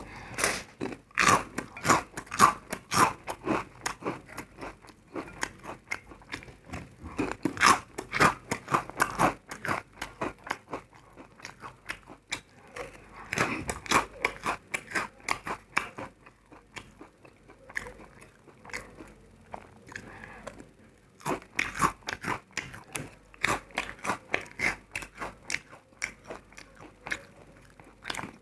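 Close-miked chewing of crunchy food: dense, sharp crunches that come in loud bursts, with a quieter spell of softer chewing in the middle before the crunching picks up again.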